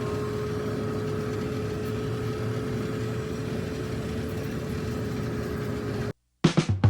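Steady vehicle running noise with a constant mid-pitched whine, typical of the Subaru Sambar driving on the road. It cuts off abruptly about six seconds in, and a few plucked music notes begin near the end.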